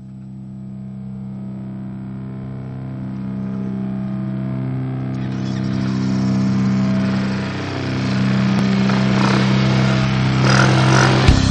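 Music intro: sustained droning chords fading in and swelling, changing chord about two-thirds of the way through, with drums and guitar starting to come in near the end.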